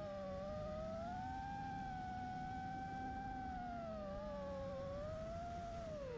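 FPV racing quadcopter's motors and propellers whining, the pitch rising in the first second, holding steady, easing off around four to five seconds in and dropping near the end as the throttle changes.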